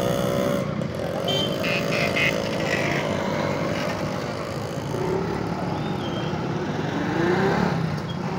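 Road traffic noise: motorcycles and other vehicles running and passing on a busy street.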